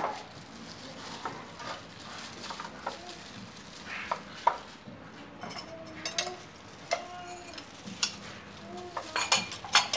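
A plastic-gloved hand rubs marinade into the skin of a raw whole chicken in a pan, making wet squelching and crinkling of the glove. Irregular sharp clicks and taps of glove and meat against the pan come through, loudest near the end.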